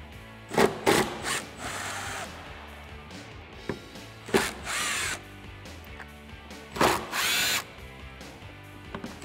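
Cordless power driver spinning Torx bolts out of the third-brake-light trim on a spare tire carrier, in three short runs, each a whine that wavers in pitch.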